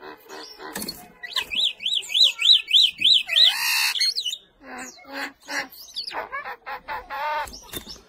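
Crested mynas calling: a rapid warbling whistle that swoops up and down about three times a second, starting about a second in, followed by a jumble of short clicks and brief calls.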